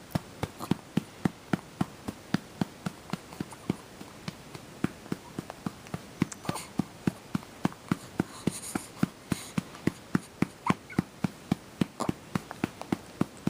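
A hand patting a baby's back steadily to bring up a burp, about three soft pats a second.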